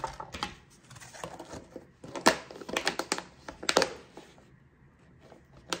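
Plastic food packaging being handled: irregular crinkling with several sharp clicks.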